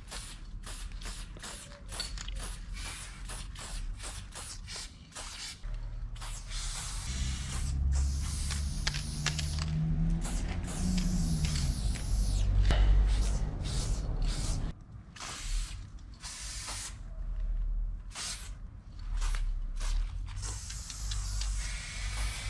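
Aerosol spray-paint can hissing in many short bursts, a few a second, while painting white outline lines, then in longer sprays from about a third of the way in. A low rumble sits underneath in the middle.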